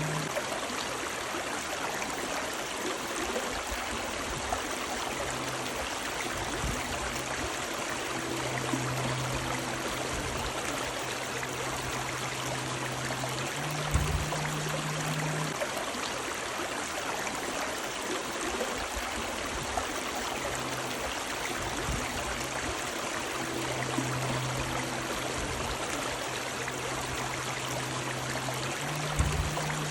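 River water running steadily over rocks, an even rushing and trickling. A short low thud with a brief low hum comes about halfway and again near the end.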